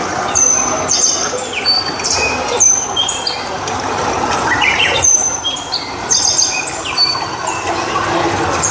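A chorus of bird calls: many short, high whistles and chirps, several gliding down in pitch, over a steady hiss.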